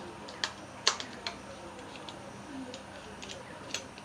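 Ceiling-fan parts being handled and fitted together by hand: a few sharp clicks and taps, the loudest about a second in and a couple more near the end.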